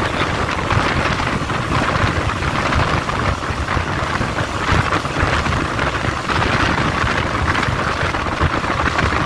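Steady rush of a moving passenger train heard from an open carriage window: wheels running on the rails with wind buffeting the microphone.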